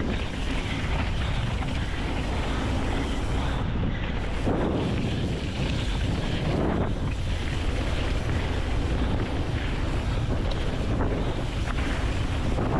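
Wind rushing over the microphone and mountain bike tyres rolling fast on a dirt trail during a descent, steady throughout, with a few small clicks.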